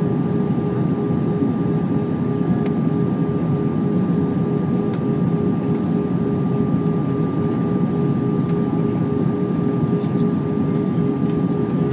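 Steady cabin noise of an easyJet Airbus A320 in flight: jet engines and rushing airflow as a constant drone, with a few steady whining tones over it.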